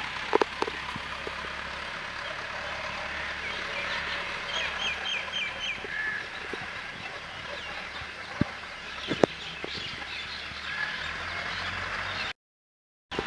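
Birds chirping and calling over steady outdoor background noise, with a quick run of five short chirps about four and a half seconds in and a few sharp knocks. The sound drops out briefly near the end.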